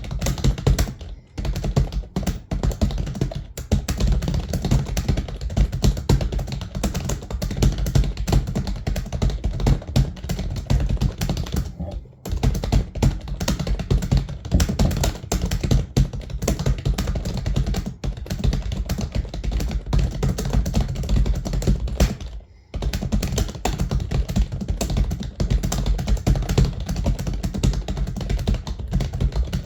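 Fast, continuous typing on a computer keyboard at about 100 words per minute: a dense stream of key clicks. It stops briefly about a second in, near the middle and about three-quarters of the way through.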